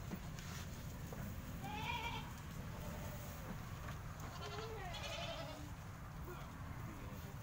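Goats bleating in their pen: two quavering bleats, one about two seconds in and another about five seconds in, over a steady low rumble.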